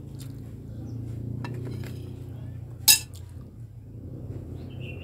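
A few light clicks of tableware, then one sharp, loud glass clink about three seconds in as a glass mug is taken up from the table to drink from, over a steady low hum.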